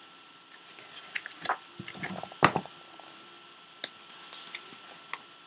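Handling noises from a picture book being handled, with scattered soft clicks and rustles and one louder knock about two and a half seconds in.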